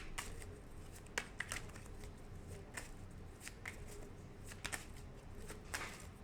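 Tarot cards being shuffled and handled: irregular soft snaps and slides of the cards, a few clicks a second apart.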